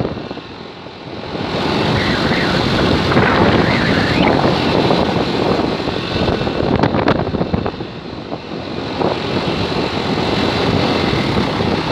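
Wind rushing over the microphone over the steady engine and road noise of a vehicle being driven along a street. It dips briefly about a second in and again around eight seconds in.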